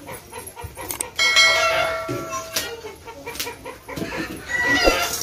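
Domestic chickens clucking in the background, with a ringing metallic clang about a second in whose tone fades over a second or so.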